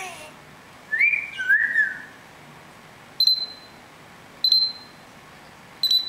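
African grey parrot whistling two notes, the second a rising-then-falling glide, then giving three short, sharp high-pitched clicks about a second and a half apart.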